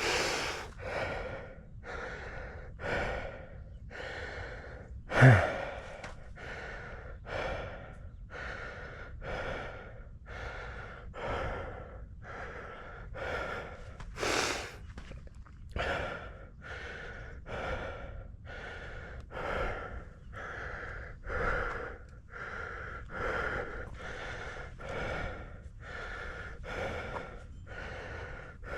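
A person breathing hard and rhythmically from exertion, panting about one and a half breaths a second. One louder, sharp sound comes about five seconds in.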